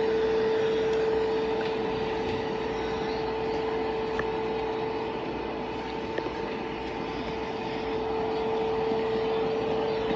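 Kidkin pet grooming vacuum running steadily: a constant motor hum over a rush of suction air.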